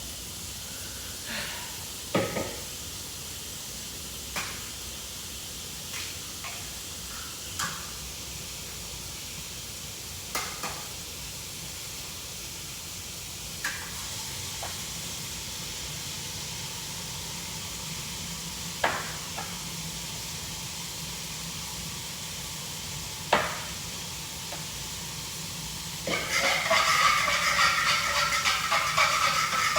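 Oil and egg sizzling steadily in a frying pan, with scattered clicks and knocks of a utensil against the pan. A louder, rougher frying and stirring noise starts near the end.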